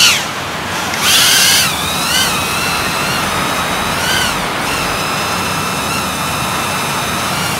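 BetaFPV Aquila16 quadcopter flying, its small electric motors and propellers giving a high whine that rises and falls with the throttle, loudest in a surge about a second in, then steadier.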